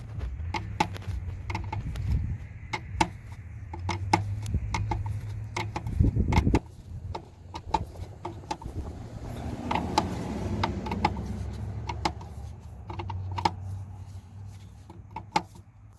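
Metal tools and fittings clinking in irregular, sharp clicks as the fuel line fittings on a diesel fuel bowl are tightened by hand, with wind buffeting the microphone in a low, shifting rumble.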